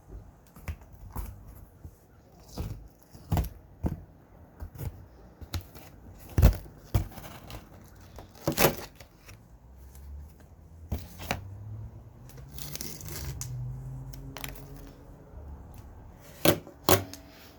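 Irregular sharp knocks and clicks, with a longer stretch of scraping or rustling about two-thirds of the way through: hands working at the fittings of a window air conditioner as it is taken out.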